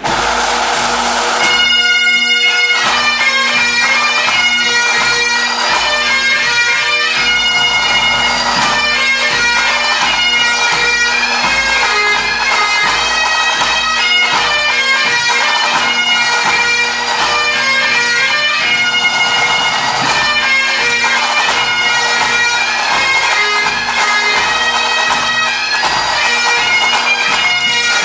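A Scottish pipe band playing: Great Highland bagpipes with a steady drone under the chanter melody, with snare, tenor and bass drums. The band strikes in suddenly at the start, with a quick drum roll about two seconds in.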